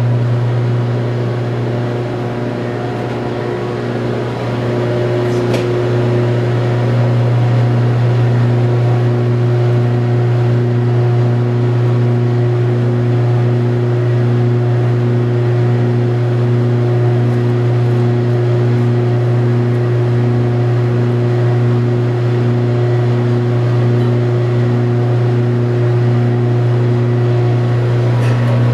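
Commercial drum coffee roaster running: a loud, steady machine hum with a tone that pulses about once a second. A single sharp click sounds about five seconds in.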